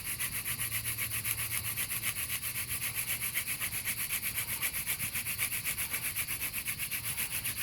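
Cocklebur hand-drill spindle spinning fast in a Western red cedar hearth board socket, a dry rubbing hiss pulsing in a quick even rhythm with each back-and-forth spin of the spindle. This is the final high-speed drilling to bring a smoking ember to a coal.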